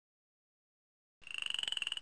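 Silence, then about a second in a rainforest animal call starts abruptly: a rapid pulsing trill at a fairly steady high pitch, about eighteen pulses a second.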